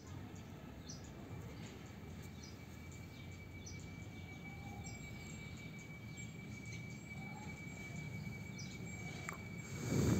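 Outdoor garden ambience: a steady high-pitched insect buzz with short bird chirps repeating every second or so over a low background rumble, and a brief low thump near the end.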